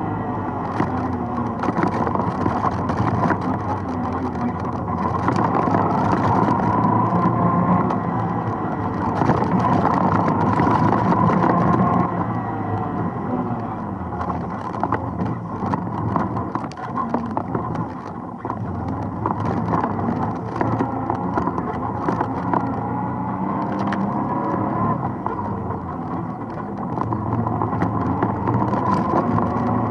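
ATV engine running under a rider's throttle, its pitch rising and falling as it climbs and slows along a rough trail. It works hardest from about six to twelve seconds in, eases off around eighteen seconds and picks up again near the end, with frequent short knocks and rattles as the machine jolts over the ground.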